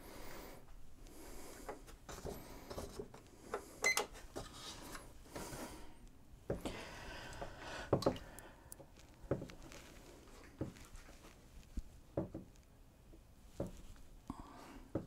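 Someone handling equipment in a darkroom: scattered knocks and clicks, a short rustle about seven seconds in, and two sharper knocks about four and eight seconds in.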